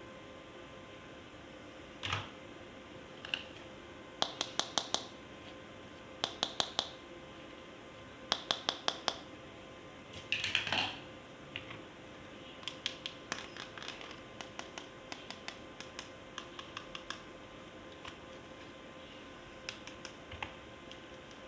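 Hard plastic toys and packaging being handled: quick runs of four or five clicks, two short scratchy rustles, then scattered lighter clicks and taps.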